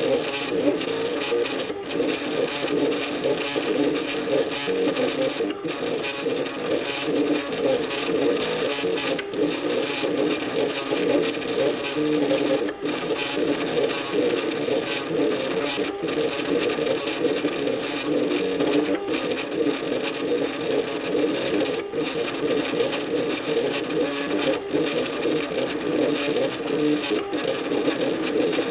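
MakerBot Cupcake 3D printer's stepper motors whining at shifting pitches as the extruder and build platform move during a print. The sound breaks off briefly every few seconds.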